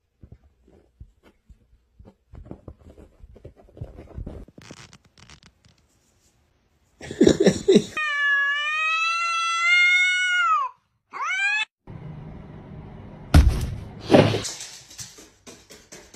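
A cat yowling at another cat in a standoff: one long drawn-out call of nearly three seconds that rises a little and then falls away, followed by a short second yowl. A harsh noisy burst comes just before the call, and a couple of loud thumps follow a few seconds after it.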